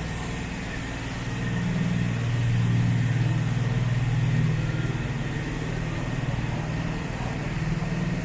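City street traffic: the steady low hum of vehicle engines running, growing louder about two seconds in and easing again after about five seconds.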